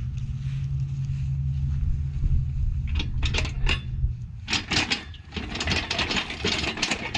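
Metal clanking and jingling from a hand-worked engine hoist with an engine hanging on it, starting about three seconds in and turning into a busy run of clinks and rattles after about four and a half seconds.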